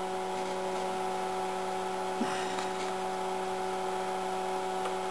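Steady hum of a running Tektronix TDS-654C oscilloscope, several even pitched tones held level throughout. A single faint click about two seconds in.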